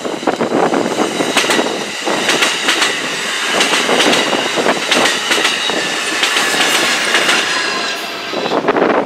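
Amtrak double-deck passenger train rolling past close by, its wheels clicking over rail joints, with a steady high-pitched wheel squeal from about two seconds in that dies away near the end as the last car goes by.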